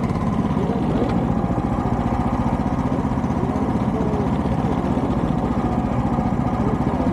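Engine idling steadily at an even speed.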